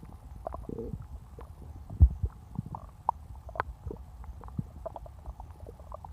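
Close-miked stomach gurgling and rumbling: irregular small pops and squelches over a low rumble, with one sharp, loud pop about two seconds in.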